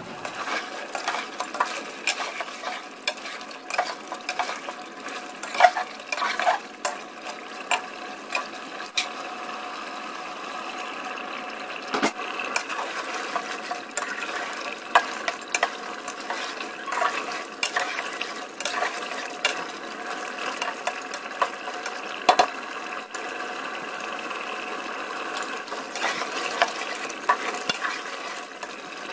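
A flat metal spatula stirring chicken curry in a metal pot, scraping and clinking against the pot many times, over a steady sizzle from the cooking gravy.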